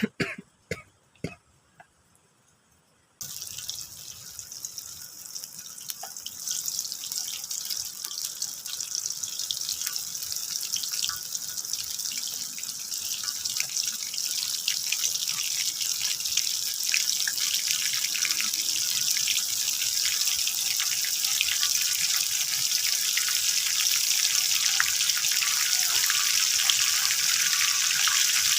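A few short knocks, then from about three seconds in a steady crackling sizzle of food frying in hot oil, slowly growing louder.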